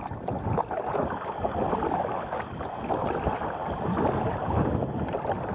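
Wind buffeting the camera microphone, with water splashing and lapping around a sea kayak on the move.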